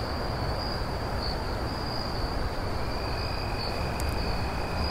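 Crickets trilling steadily over an even background hiss; a second, lower steady tone joins about three seconds in.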